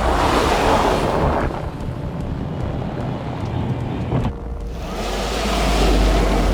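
Loud rushing, wind-like noise over a low rumble. It dips briefly about four seconds in, then swells again with a heavier rumble near the end.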